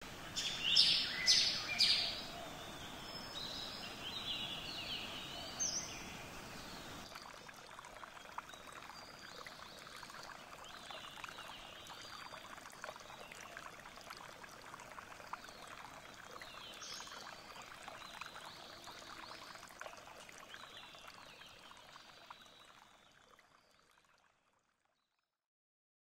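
Birds chirping over a steady background rush of noise, the chirps loudest and busiest in the first few seconds and sparser afterwards; the whole ambience fades out near the end.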